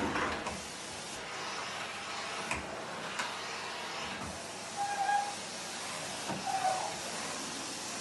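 Vacuum cleaner running steadily, heard as a constant hiss, with a few faint clicks and two short higher tones about five and six and a half seconds in.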